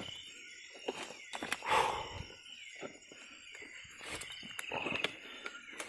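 Footsteps picking slowly through wet forest floor: irregular steps and rustles, one louder step about two seconds in. Insects chirr steadily behind.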